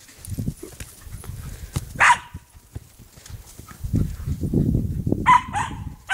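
Cairn terrier barking: one sharp bark about two seconds in and two quick barks near the end. Between the barks there is a low rumbling, thudding noise.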